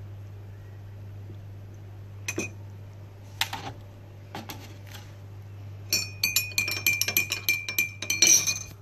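A teaspoon stirring tea in a ceramic mug, clinking quickly against its sides with the mug ringing, from about six seconds in until near the end. A few single knocks come first.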